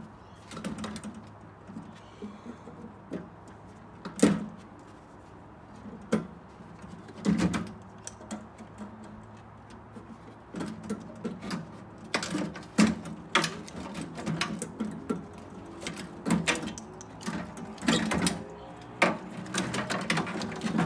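Irregular sharp clicks and knocks of hand tools and metal parts inside a microwave oven's steel cabinet as it is taken apart, busier in the second half.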